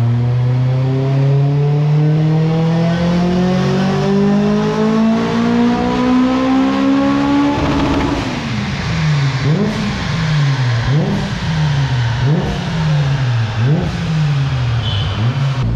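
Car engine on a chassis dyno during a power run: its revs climb steadily under load for about seven seconds, then the throttle closes abruptly. After that the revs fall and rise again about every second and a half, and a fresh steady climb starts near the end.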